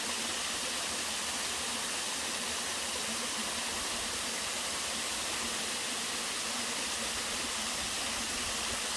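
Waterfall pouring steadily into a mountain stream, a constant rushing hiss of falling water with no breaks.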